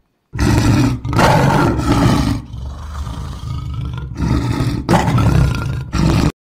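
Lion roaring: several loud, rough roars with a quieter stretch in the middle, cutting off suddenly near the end.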